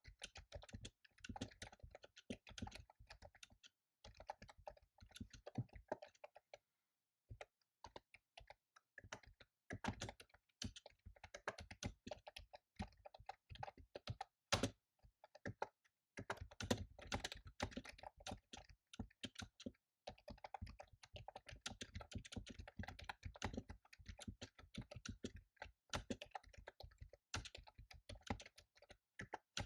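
Fast typing on a computer keyboard: quick runs of key clicks broken by a few short pauses, with one heavier keystroke near the middle.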